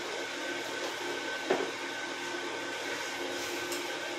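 A steady whirring hum with a thin high whine runs under the cooking. About one and a half seconds in there is a single sharp clack, and near the end a spatula scrapes as it stirs masala in a steel kadai.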